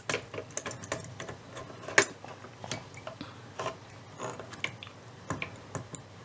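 Irregular small metallic clicks and ticks of needle-nose pliers working on a turntable's tone-arm mechanism, with one sharper click about two seconds in.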